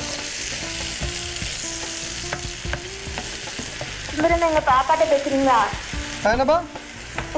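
Chicken pieces in a creamy marinade sizzling in a non-stick pan on a gas burner while a spatula stirs them, with short scrapes and taps against the pan. The sizzle drops away near the end.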